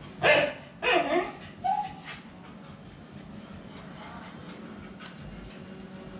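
Phu Quoc Ridgeback dogs giving two loud yelps about half a second apart, the second falling in pitch, then a short high whine.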